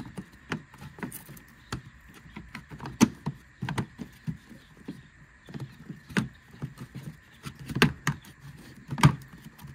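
Plastic cowl trim panel of a 2014 Honda CR-V being handled and worked into place at the base of the windshield: irregular plastic clacks and knocks, the sharpest about three seconds in and twice more near the end.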